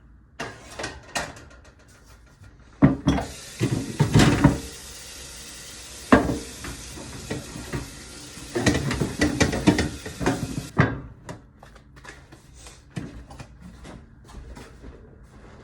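Kitchen handling sounds: a string of knocks and clatters of pans, dishes and cupboard doors. A steady hiss joins in about three seconds in and stops sharply near eleven seconds.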